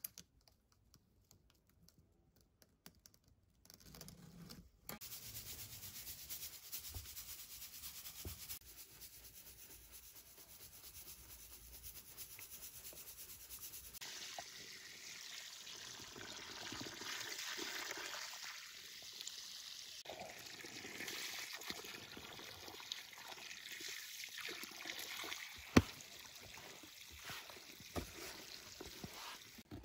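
Water running into a plastic tub, then a hand scooping and mixing wet sand in it, with one sharp knock late on.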